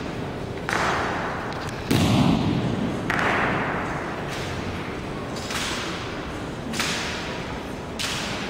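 Sharp claps and thuds of a ceremonial rifle drill by a squad of honor guards, about six of them spaced a second or so apart, each ringing on in the hall's echo. The loudest and deepest thud comes about two seconds in.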